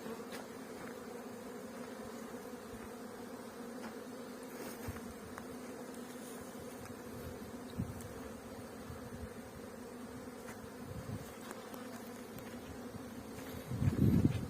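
Honeybees buzzing in a steady hum around their hives. A louder, lower rumble swells up briefly near the end.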